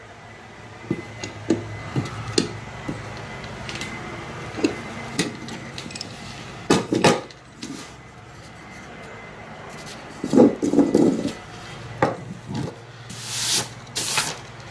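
Wooden toy parts and a clamp being handled on a workbench: scattered light knocks and clicks of wood and metal, with denser clusters about halfway and two-thirds of the way through. Near the end come two short scraping hisses.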